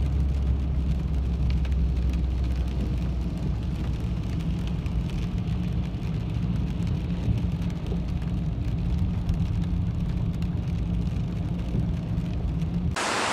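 Inside a moving car's cabin on a wet road: steady low engine and tyre rumble, with faint scattered ticks of rain on the windscreen. Near the end it cuts suddenly to a louder, even outdoor hiss of wind and rain.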